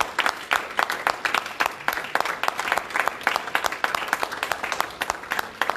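Congregation applauding: many quick, sharp hand claps several times a second after an "Amen".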